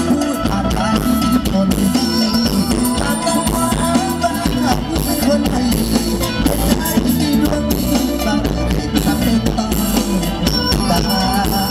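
Live Isan luk thung band music played loud through a concert PA, with a drum kit keeping a steady beat under shaker-like percussion.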